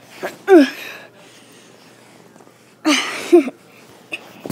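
A boy's voice making two short non-word sounds, one about half a second in and another about three seconds in, each dropping in pitch.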